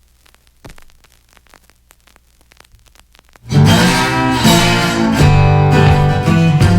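A few very quiet seconds, then guitar music starts suddenly about halfway through and carries on with a steady beat.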